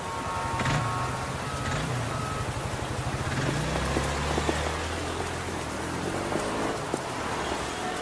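Town ambience sound effect: a steady hiss of street background with a repeating high electronic beep that stops about two seconds in, and a low vehicle-engine rumble that swells through the middle.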